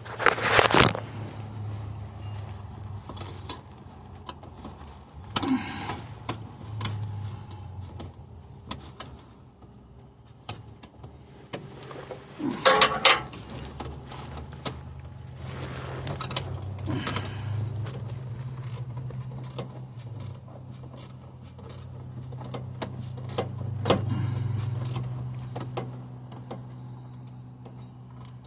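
Wrench and metal parts clinking and ratcheting as the other end of a heim-joint transfer case shifter linkage rod is fitted and tightened, with scattered sharp clicks and a few scrapes over a steady low hum.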